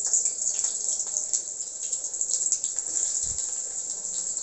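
Sliced onion going into hot mustard oil in a kadai and sizzling: a steady hiss with scattered crackles, and a brief low bump about three seconds in.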